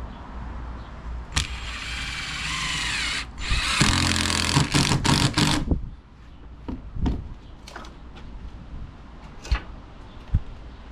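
Power drill driving screws into deck boards: a short run whose whine drops in pitch as it loads up, then a second, louder run, followed by a few light knocks.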